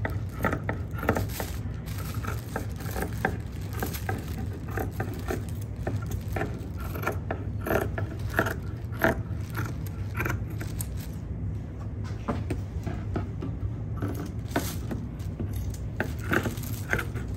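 Large fabric shears cutting through a thick cotton quilt: repeated, irregular metallic snips and scrapes as the blades close, over a steady low hum.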